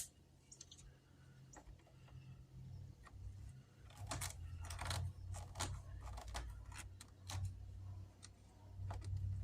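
Storm door latch and handle hardware being worked: a scatter of light metallic clicks and rattles, thickest from about three seconds in, over a faint low hum.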